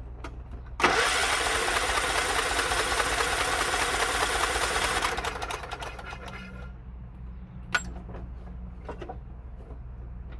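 Electric starter cranking the John Deere 16 HP engine with its spark plug removed, so it spins over fast with no compression. The cranking starts suddenly about a second in, runs for about four seconds, then winds down. A single sharp click follows near the end.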